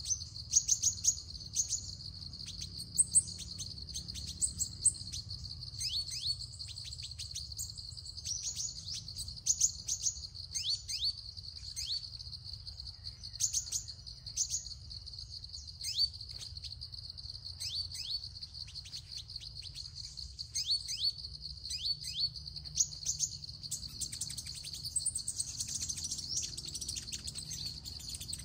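Sunbird calls: short, sharp high chirps sweeping downward in pitch, coming in quick clusters every second or two. A steady high insect buzz runs underneath.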